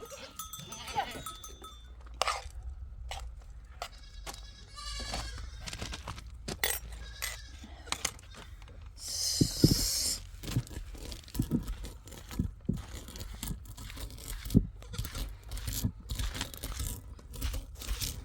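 A flock of sheep and goats bleating now and then, among many sharp knocks and clatters, with a brief hiss about nine seconds in.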